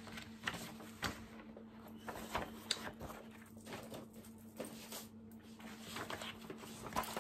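Faint scattered taps, clicks and rustles of perfume packaging and other small items being handled and moved about, over a steady low hum.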